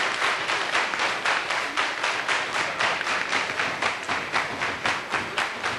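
A crowd clapping together in a steady, rhythmic beat.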